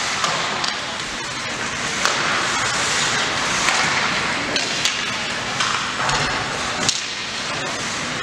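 Ice hockey play in a rink: a steady noisy wash of skating and arena ambience, with scattered sharp clacks of sticks and puck.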